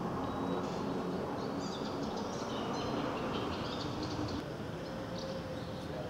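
Small birds chirping over a steady background rumble, with the faint drone of a distant light aircraft's piston engine and propeller overhead.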